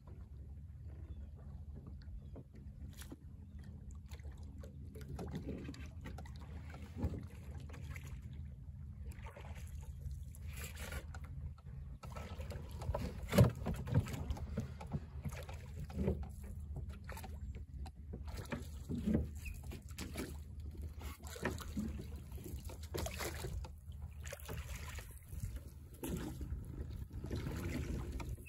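Small wooden sailing dory, a Chesapeake Light Craft Guider, moving under a single oar worked over the stern: water lapping and splashing at the hull, with occasional knocks, the loudest about halfway through, over a steady low rumble.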